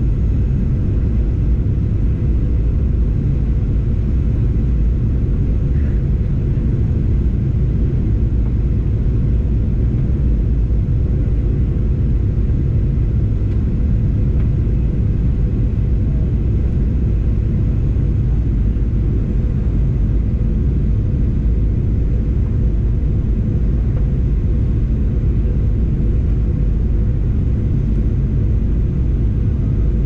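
Airplane cabin noise: a steady, loud, low drone of engine and rushing air, with a faint constant hum.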